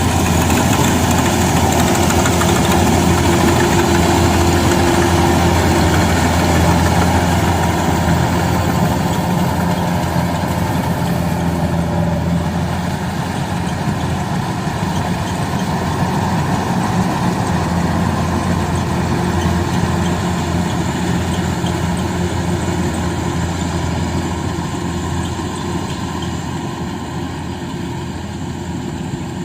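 Rice combine harvester's diesel engine running steadily, a loud continuous drone that eases off slowly over the second half.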